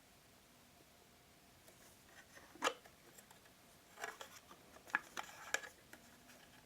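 Light handling noises from the watch winder and its packing foam being worked by hand: a sharp click about two and a half seconds in, then a run of soft clicks and rubs a second or so later.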